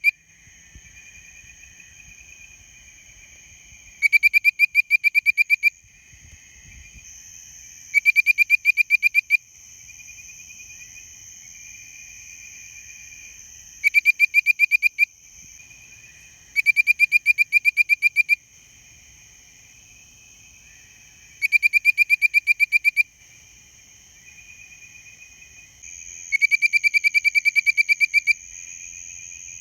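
Bird-voiced tree frog calling close by: about six bursts, each a rapid run of clear, bird-like whistled notes lasting a second or two. A steady high insect drone runs underneath, with fainter whistling from other frogs between the bursts.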